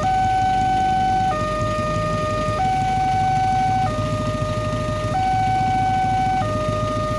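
Railway level-crossing warning alarm from the horn loudspeaker on the signal post: an electronic two-tone signal that swaps between a higher and a lower tone about every 1.3 seconds, sounding while the barrier is down because a train is approaching. Low engine rumble from waiting vehicles runs beneath it.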